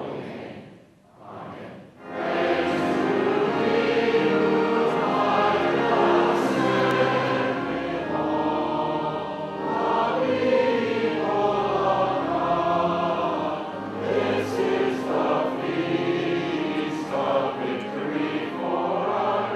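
A large congregation singing together, many voices holding long notes, starting about two seconds in.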